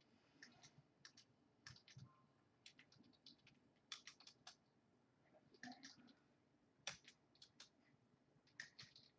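Faint, irregular clicking of typing on a computer keyboard, in short scattered clusters.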